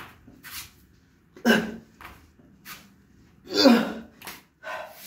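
A man's forceful, strained breaths and grunts during sit-ups, a burst of breath with each curl-up. Two loud ones about one and a half seconds and three and a half seconds in, with softer breaths between.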